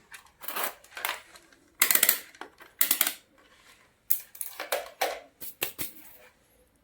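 Handling noise from working with small parts and tools on a bench: about a dozen short rustles and clatters, irregularly spaced.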